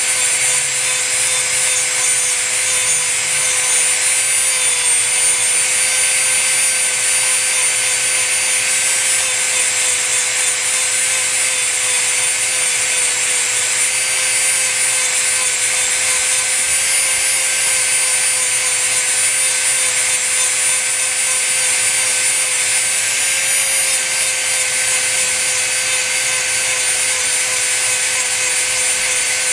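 Dremel rotary tool running steadily at high speed with a constant whine, its bit grinding paint off a composition doll part.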